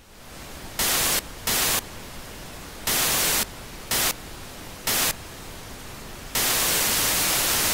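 Television static: a steady hiss that jumps to loud bursts of static five times, each lasting under a second, then stays loud for about the last second and a half.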